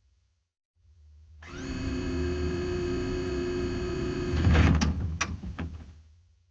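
Printer running: a low hum, then a steady whir of its feed mechanism with several steady tones, loudest near the end where a few sharp clicks come before it dies away.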